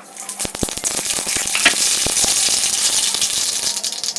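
Hot oil in a pan sizzling as a dal tempering (tadka) is made: a few sharp crackles about half a second in, then a loud, steady sizzle with crackling throughout.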